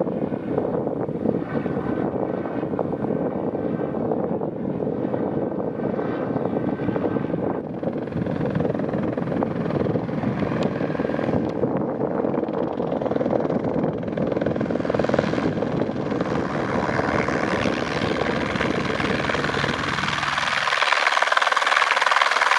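Airbus H125 helicopter, a single-turbine AS350 type, flying by with its steady rotor and turbine noise. Near the end it grows louder and higher as the helicopter comes in close and low.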